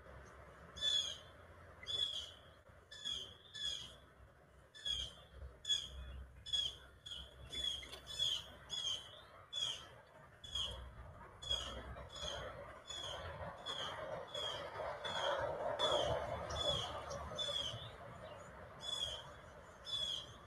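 A small songbird gives short, sharp chip calls over and over, about one or two a second. A soft rushing noise swells and fades in the middle.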